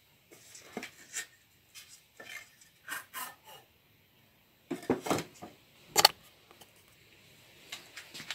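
Wooden boards and blocks being handled and set down on a workbench: irregular knocks and scrapes, the loudest a sharp knock about six seconds in.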